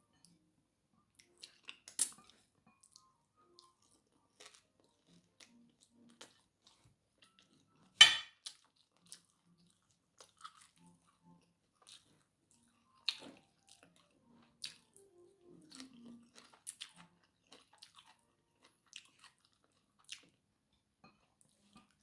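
A person eating fried fish and rice with her hands: chewing and crunching, with scattered small clicks and a few sharp cracks, the loudest about eight seconds in.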